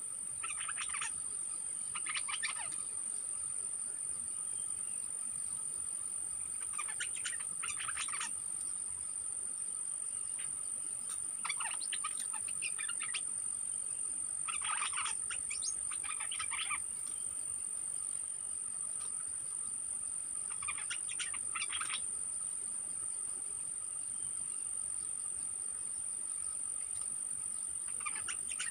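Caged decoy bulbul (merbah lekir) singing short two-part phrases every few seconds, over a steady high-pitched insect drone.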